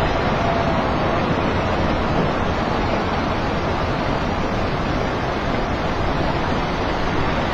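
Landslide: rock and debris pouring down a mountainside, a steady, continuous rumble with no separate impacts standing out.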